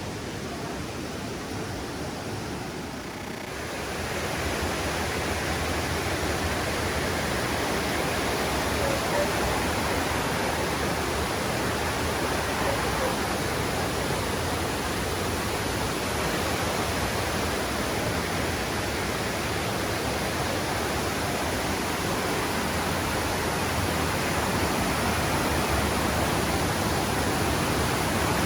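Steady rush of water, growing louder about three and a half seconds in.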